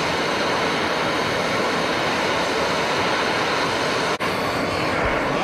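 Soldering torch flame with a steady, loud hiss while copper faucet supply pipes are sweated. It cuts out for an instant about four seconds in.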